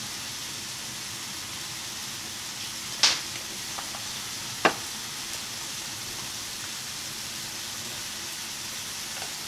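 Small fried fish and chillies sizzling steadily in a wok over a gas burner, with two sharp knocks, about three seconds and about four and a half seconds in.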